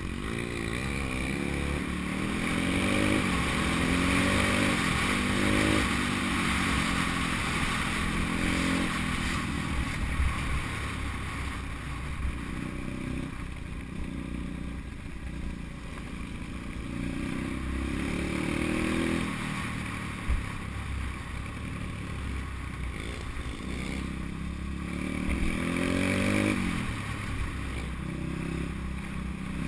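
Pit bike engine ridden on board, revving up and dropping back over and over through the gear changes, with wind hissing over the microphone. A couple of brief knocks come from the bike over bumps.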